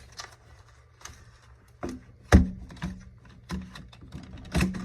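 Irregular knocks and taps of objects being handled and set down on a work table. The loudest knock comes about two and a half seconds in, with a second strong one near the end.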